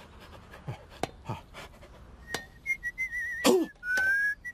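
Someone whistling a thin, high tune in short notes, warbling in the middle and ending on a slowly rising note. Before it come a few faint clicks and short grunt-like sounds, and a louder falling vocal sound about three and a half seconds in.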